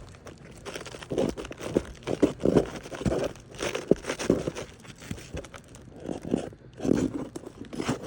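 Brittle asphalt shingles scraping and crackling in irregular bursts, with a few sharp clicks, as they are worked under to reach a nail set high up.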